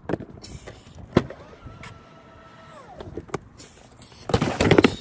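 Clicks, then a car's small electric motor whines steadily for about a second before winding down in pitch and stopping. Near the end comes a loud burst of rustling and clattering as gear in the car's cargo area is handled.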